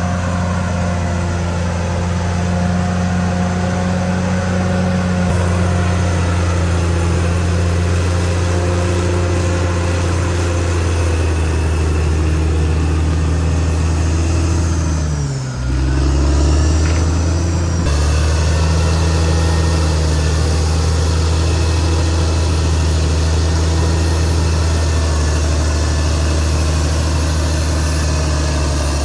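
Caterpillar D6R XL bulldozer's diesel engine running steadily under work. The engine note dips briefly about halfway through, then picks back up.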